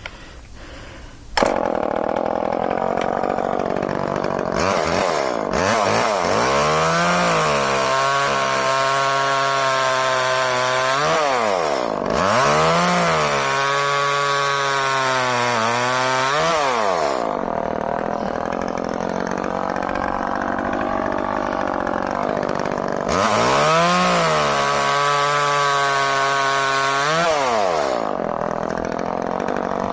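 Echo CS-305 30cc two-stroke chainsaw bucking wood: it comes in loud about a second and a half in, and its engine pitch sags and recovers several times as the chain cuts under load, easing off for a few seconds between cuts.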